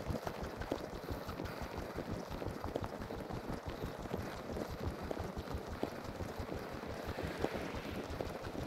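Footsteps crunching on a snow-covered path at a steady walking pace.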